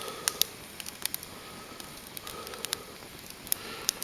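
Fire crackling: irregular sharp pops, several a second, over a faint steady hiss.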